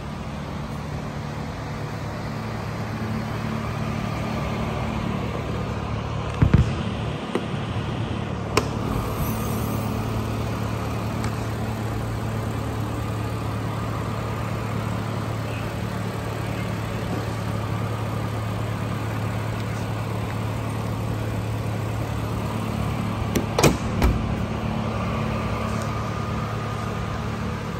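Lamborghini Urus twin-turbo 4.0-litre V8 idling steadily. A few sharp knocks stand out, one about a quarter of the way in and two close together near the end.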